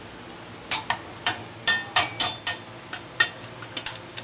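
A long-nosed utility lighter worked inside a metal burner cup to light hand-sanitizer gel fuel: a run of about ten sharp clicks, some with a brief metallic ring.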